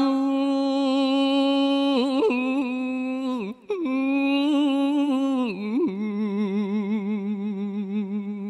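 A man chanting Khmer smot solo, drawing out long, ornamented held notes with a quick wavering in the voice. The line breaks for a moment about three and a half seconds in. Near the end the voice settles onto a lower held note that wavers steadily.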